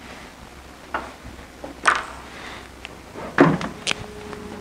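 A few short knocks and scrapes of a marker against a whiteboard as it is picked up and used to write. The loudest comes about two seconds in, with a cluster of smaller ones near the end.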